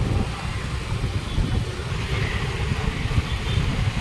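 Steady low rumble of a moving road vehicle with road noise.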